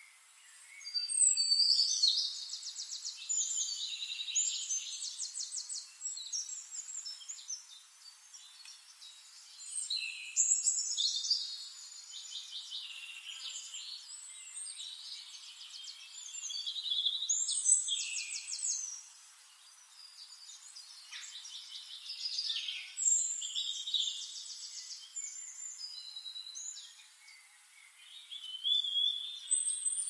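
Songbirds singing: a bright, rapid trilling, chirping song repeated in phrases a few seconds long, every six or so seconds, with a faint hiss between phrases.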